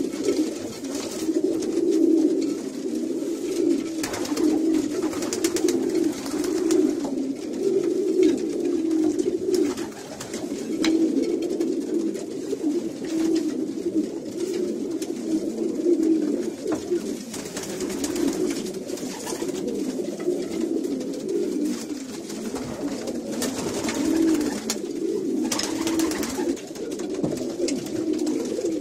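Many domestic pigeons cooing together in a loft, a dense unbroken chorus of overlapping low coos, with a few brief rustling noises now and then. The pigeons are being paired in their breeding boxes, and this cooing is typical of cocks courting hens.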